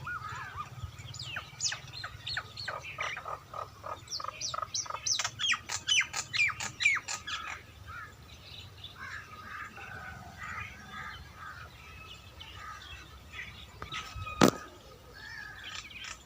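Wild birds singing: a quick run of sharp, falling chirps that speeds up for several seconds, then softer chattering calls. A single sharp click or knock sounds once near the end.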